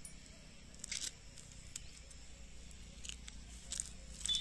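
Faint rustling and crinkling of a small paper slip being handled and unfolded in the hands, with a few soft crackles about a second in and again near the end.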